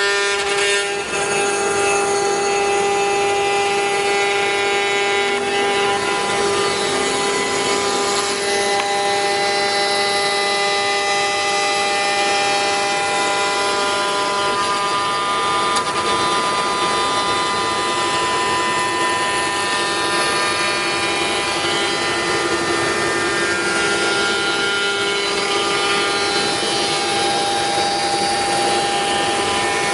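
Five-axis CNC router spindle running and machining, a steady whine made of several held pitches over a rushing noise.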